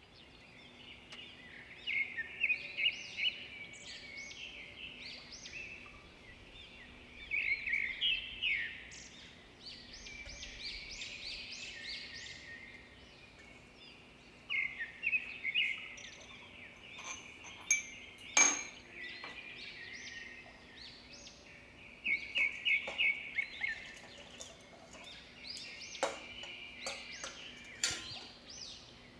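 Small birds chirping in repeated bouts of quick, high chirps, with a sharp click about midway.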